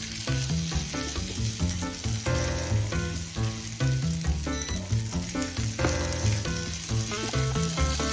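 Background music with a bass line and melody, over the sizzle of snow peas and chicken frying in a pan as they are stirred with a spatula.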